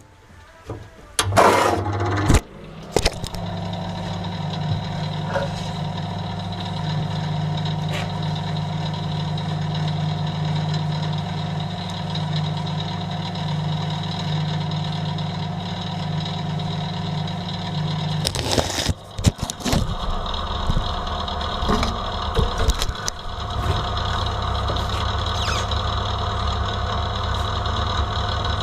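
A machine starts with a few knocks and then runs with a steady hum. About eighteen seconds in, the hum breaks off amid more knocks, then it runs steadily again.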